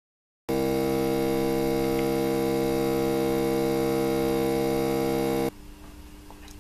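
A typical 2-phase stepper motor running at 60 r/min in full-step mode gives a loud, steady hum of several pitches, about 68 dB on the meter. About five seconds in it cuts to a CVK series 2-phase stepper motor at the same speed, running much more quietly, about 44 dB.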